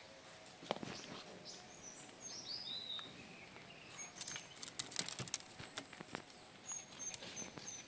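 Small dog licking and nibbling at bamboo slats, giving a run of short wet clicks and taps that come thick and fast about four to five seconds in. Birds chirp around it, with a falling series of chirps about two seconds in.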